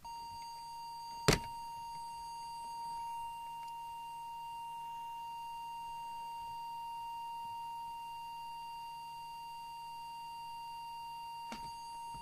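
Small audio test oscillator putting out a steady single-pitched tone, used as the test signal for setting the CB transmitter's FM deviation. A sharp click about a second in, and a couple of softer clicks as the tone stops near the end.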